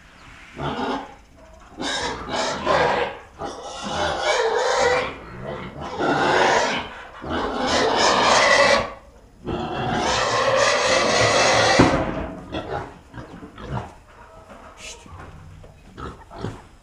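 Pigs squealing in a run of loud, harsh cries, each one to two seconds long with short gaps between: the hungry squealing of pigs demanding to be fed.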